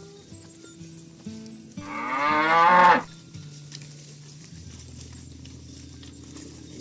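A cow moos once, a single long call about two seconds in that swells in loudness and cuts off sharply.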